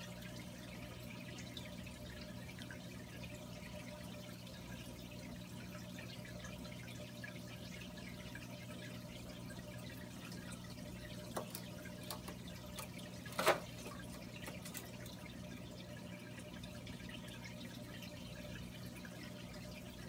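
Water trickling over a steady low hum, with a few faint clicks and one short sharp snap about two-thirds of the way through.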